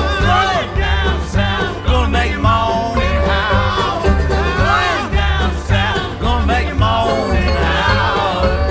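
Recorded country-bluegrass string-band song: a lead vocal with wavering, sustained notes over string accompaniment and a low bass note pulsing about once a second.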